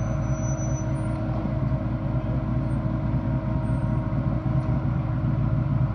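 A Jeep's engine running steadily at a constant pitch, a continuous low drone with no revving.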